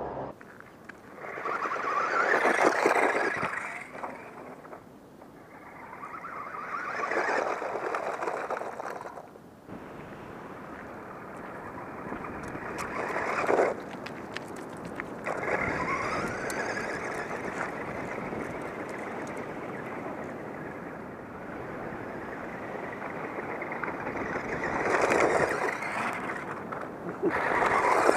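A Radio Shack RC Lightning toy car driving: the whine of its electric motor and its tyres crunching over gravel and pavement, swelling loud and fading away several times as it passes close and drives off, with the pitch rising once as it speeds up.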